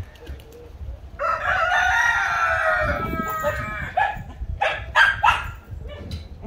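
Rooster crowing once, a long call starting about a second in and lasting nearly two seconds, then a few short calls from the flock.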